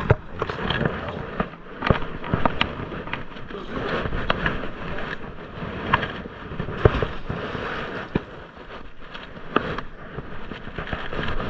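Handling noise from hauling in a wet magnet-fishing rope through rubber-gloved hands, with irregular sharp knocks, scrapes and crackles throughout.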